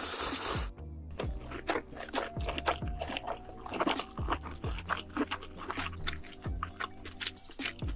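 Close-miked crunchy chewing and biting of food, many crisp irregular crunches, over background music with a low beat.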